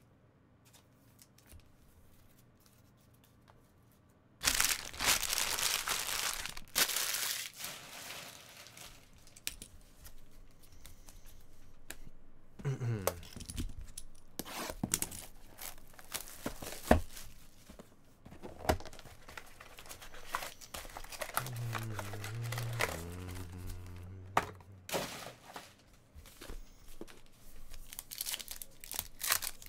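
Hands tearing open a sealed Panini Chronicles trading-card box and then a foil card pack: tearing and crinkling of the packaging, starting about four seconds in, loudest just after it begins.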